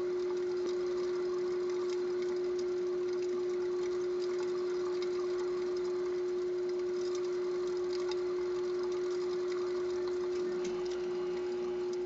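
A Roborovski dwarf hamster running in a plastic exercise wheel: light clicking and whirring from the turning wheel, under a steady hum held at one pitch.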